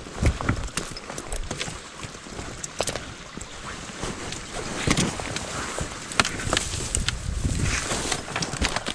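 Footsteps of a person walking over uneven ground, with irregular knocks, scrapes and rustling over a low rumble of wind on the microphone.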